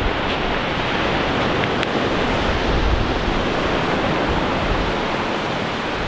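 Ocean surf breaking and rushing on the shore: a steady wash of noise, with wind buffeting the microphone.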